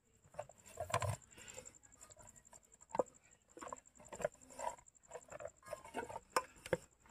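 Hands kneading and pressing a stiff rice-bran fishing bait dough: irregular soft squelches and sharp pats, the sharpest about a second in, at three seconds and twice near the end.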